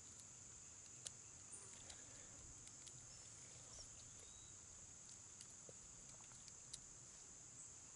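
Quiet, steady, high-pitched insect chorus, with a few faint light clicks about a second in and again near the end.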